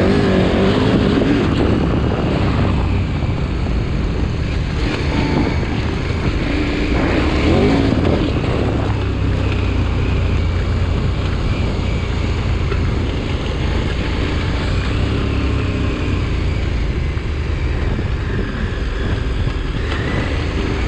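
KTM 1290 Super Adventure R's V-twin engine running under way off-road, the revs rising and falling a couple of times in the first several seconds, then steadier. Wind noise on the microphone mixes in.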